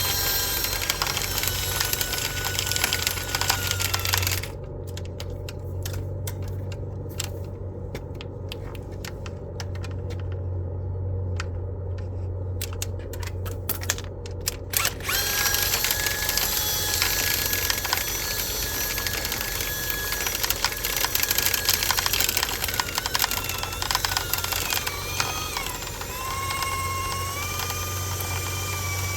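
Electric power tool motor running continuously with a steady low hum and a high whine that shifts up and down in pitch as its speed changes. For about ten seconds in the middle the whine drops out and the sound turns muffled, with scattered clicks.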